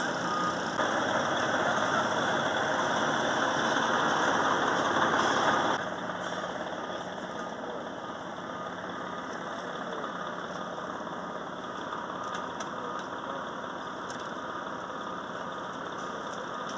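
Emergency vehicles' engines idling, a steady rumble that steps down to a quieter level about six seconds in.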